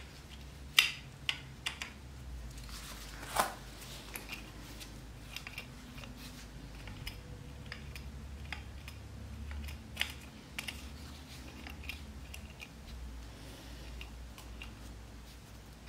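Scattered small clicks and taps of gloved hands handling motorcycle carburetor parts and the float assembly, with a low rumble underneath.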